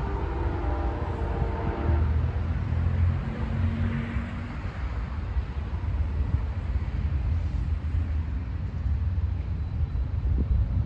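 Passing train with a heavy, steady rumble. A horn chord of several tones sounds at the start and cuts off about two seconds in.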